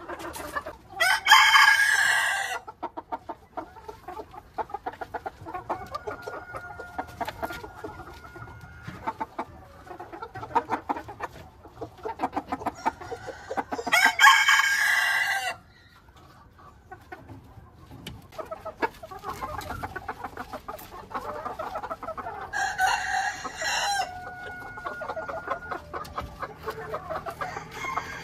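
Ko Shamo bantam gamecocks crowing three times, each crow lasting about a second and a half: once near the start, once about halfway and once near the end. Between the crows come softer clucks and scattered light ticks.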